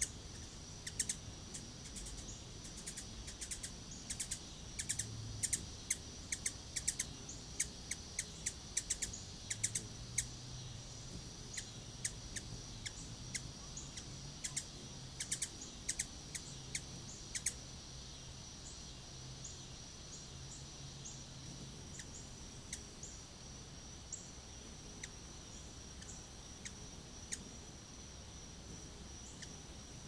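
Hummingbird giving short, high chip notes in quick runs, thick over the first half and only now and then after, over a steady high-pitched whine.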